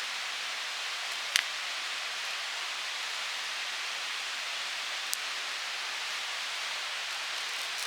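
Wood campfire burning: a steady hiss with two sharp crackling pops, a loud one about a second and a half in and a smaller one about five seconds in.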